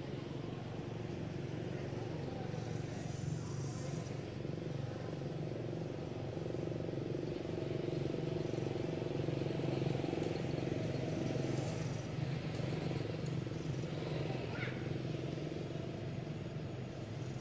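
A motor vehicle engine running steadily, getting louder towards the middle and easing off again. A brief high chirp comes late on.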